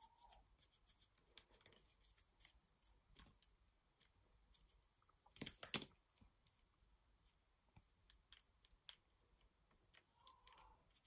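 Faint light ticks and scratches of a ball stylus tool pressing and shaping paper flower petals on a foam mat, with a short cluster of louder clicks about halfway through.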